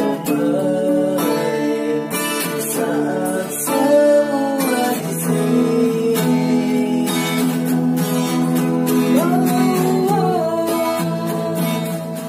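Two acoustic guitars playing a slow song together, strummed chords under picked melody notes.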